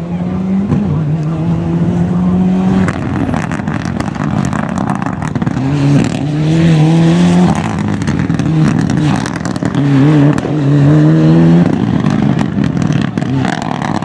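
Mitsubishi Lancer Evolution rally car's turbocharged four-cylinder engine under hard acceleration, the revs climbing through several gears with drops at each upshift and sharp crackles between the pulls.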